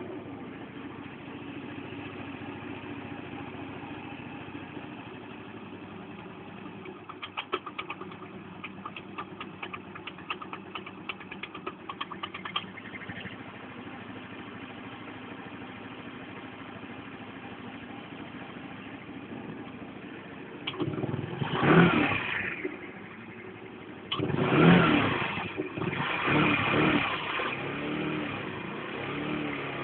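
Chinese scooter engine idling, with a stretch of rapid high-pitched ticking for several seconds, then blipped in bursts of throttle that rise and fall without revving out. The owner cannot place the high 'tocking' at low revs, and the engine will not rev up at full throttle.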